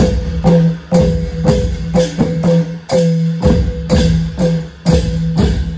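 Thai Isan long drums (klong yao) played in a steady rhythm of about two strokes a second, each stroke ringing at a fixed low pitch, during a sound check of the drums.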